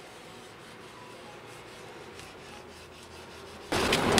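Metal spoon rubbing over the back of dampened printmaking paper laid on an inked collagraph plate, burnishing the print by hand. Faint at first, then a sudden much louder scraping rub near the end.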